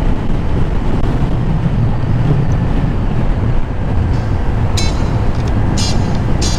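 Motorcycle riding along at speed: steady engine and road noise with wind on the microphone. From about four seconds in, a few short, high chirping sounds come through.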